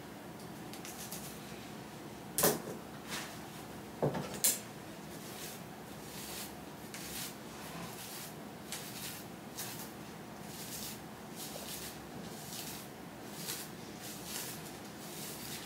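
A comb pulled through a soaking-wet wig, soft short strokes repeating roughly once a second. A few sharp clacks come in the first five seconds, the loudest about four and a half seconds in.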